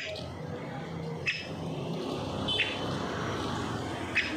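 Bird chirping in short single high notes, about three in a few seconds, over steady background noise with faint distant voices.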